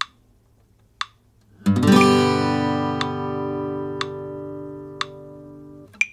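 A metronome ticks once a second, 60 beats a minute. About one and a half seconds in, an acoustic guitar strums a G chord once. The chord rings and fades for about four seconds, then is damped short just before the next tick.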